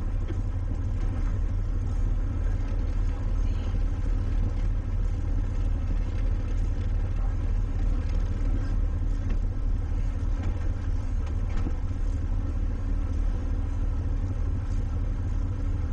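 Towboat engine running steadily under load, a low rumble with faint steady tones above it.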